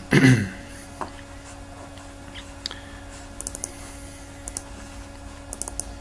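Computer keyboard and mouse clicks, some single and some in quick clusters of two to four, over a faint steady hum. A louder short thump comes right at the start.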